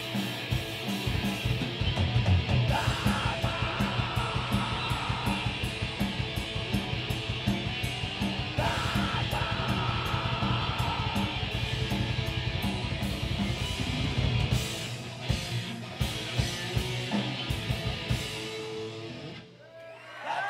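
A live heavy metal band plays loud distorted electric guitars over very fast, even kick drumming, with harsh yelled vocals. After about 14 seconds the drumming breaks into separate hits, and the song drops out shortly before the end.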